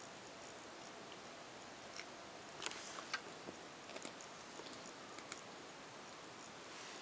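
Faint steady hiss with a handful of light, scattered clicks and ticks about two to five seconds in.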